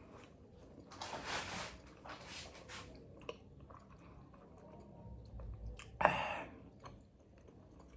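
Eating sounds from a whole tandoori chicken: chewing and handling the meat, with a few brief rustling bursts and a sharp click about six seconds in.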